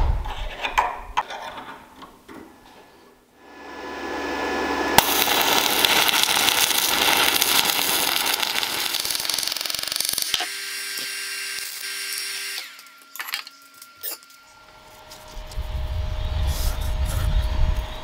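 Metalworking sounds: a few knocks, then a steady power-tool noise for about seven seconds. It stops at a hammer blow on steel, and the struck metal rings for about two seconds, followed by a few more knocks and a low rumble near the end.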